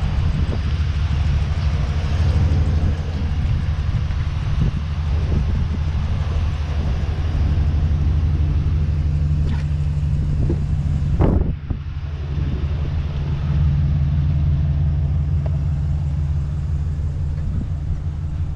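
GMC Sierra 2500HD pickup's engine idling steadily with a low rumble. A single knock comes about eleven seconds in.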